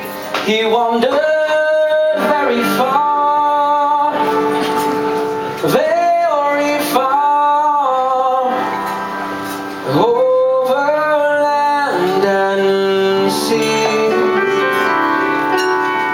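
Music: a singer holds long sustained notes in three phrases, each starting with a scoop up in pitch, over a steady instrumental accompaniment.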